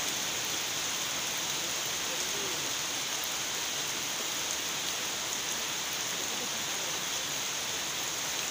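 Heavy rain falling steadily on plants and waterlogged ground: an even, unbroken hiss with faint scattered drop ticks.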